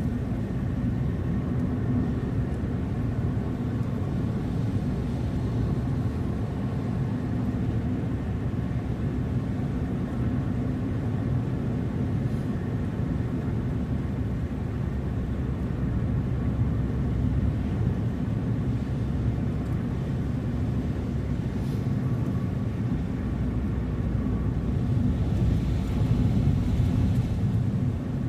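Steady low road and engine noise of a moving car, heard from inside the cabin, with a rising hiss and slightly louder noise near the end.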